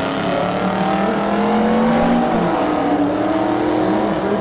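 Two drag-racing cars, a classic Chevrolet and a modern Dodge Challenger, accelerating hard down the strip side by side, engines revving. The engine pitch climbs, drops about two seconds in, then climbs again.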